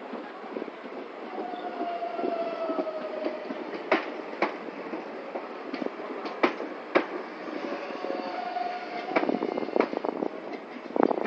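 Tren de la Costa electric light-rail train rolling past close by at low speed as it runs into the terminus. Its wheels click sharply over rail joints several times, over steady rolling noise and a faint whine that falls slightly in pitch. The rattling grows busier near the end.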